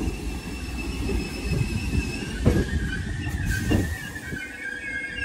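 Class 508 electric multiple unit arriving and braking: a low rumble with a few knocks dies away about four seconds in as the train slows, while its wheels squeal in thin, steady high tones that waver near the end.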